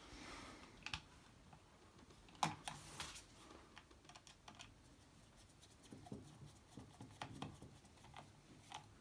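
Faint, scattered clicks and ticks of a screwdriver turning a small screw in the plastic driver box of an LED downlight, fitting the cable clamp; the sharpest click comes about two and a half seconds in.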